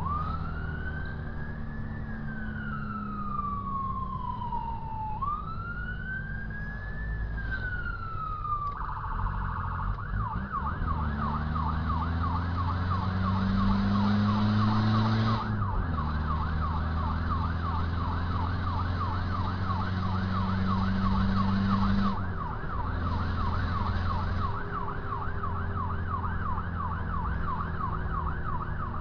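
Emergency vehicle siren in a slow wail, rising and falling, that switches about nine seconds in to a fast yelp, sounding over the rescue vehicle's own engine. The engine climbs in pitch as it speeds up and drops abruptly a little past midway.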